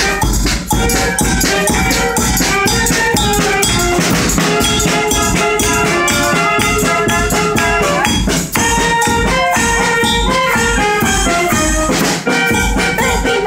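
Live band music: a large bass drum beating a steady rhythm under a melody of held notes.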